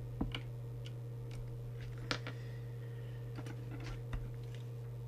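Faint, irregular clicks of a plastic trimming tool working in the tuning coil of a CB radio, whose core is broken, over a steady low hum.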